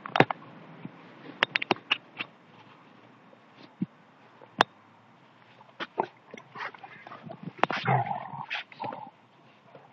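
Dogs fighting: scattered sharp snaps and clacks, then a denser stretch of growling and snarling from about six seconds in, loudest around eight seconds.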